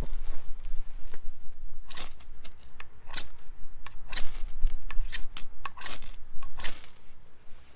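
Steel knife scraped hard along a ferro rod, throwing sparks onto wood shavings to light a fire. It gives a quick run of about ten harsh scrapes, starting about two seconds in.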